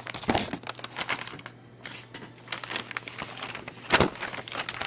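Hands handling a camcorder's small plastic parts: a run of light clicks and rustling, with one louder knock about four seconds in.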